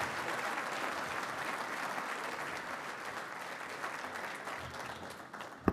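A large audience applauding, a dense patter of many hands clapping that fades away near the end.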